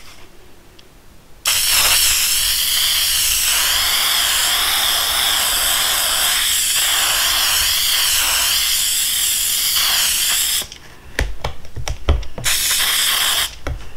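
Aerosol can of 3M Super 77 spray adhesive hissing in one long continuous spray of about nine seconds, then a few knocks and a short second spray near the end.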